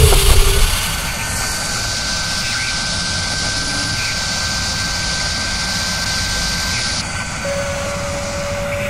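Machine-spindle drilling sound effect: a loud hit at the start, then a steady whirring roar with a thin high whine. The hiss on top drops away about seven seconds in and a lower steady tone comes in.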